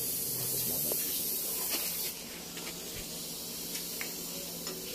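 Steady hiss over a low hum, with the hiss dropping sharply about two seconds in, and a few faint light clicks as a rubber stabilizer bushing and its metal bracket are handled and pressed into place.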